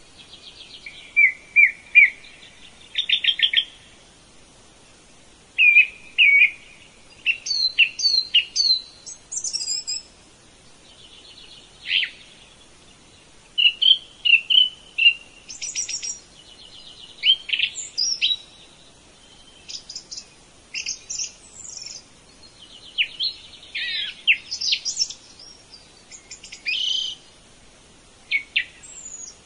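Several birds singing and calling: a busy mix of short whistled notes, quick trills and chirps, one after another.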